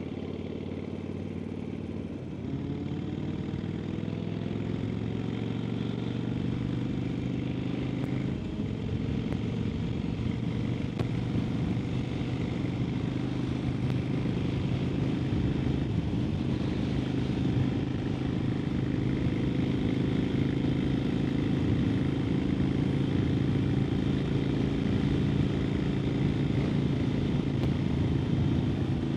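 Harley-Davidson Sportster XL1200N's air-cooled V-twin running while the bike is ridden. About two seconds in it pulls harder and its note rises for several seconds, breaks briefly about eight seconds in, then settles into a steady, slowly louder cruise.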